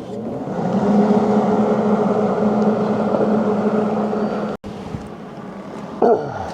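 An electric power tool's motor running at a steady pitch, then, after a sudden break, running more quietly and winding down with a falling pitch near the end.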